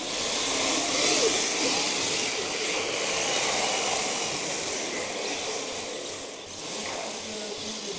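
Radio-controlled drift cars sliding on a smooth indoor floor: a steady hiss of their hard tyres with the whine of their motors rising and falling, louder in the first half.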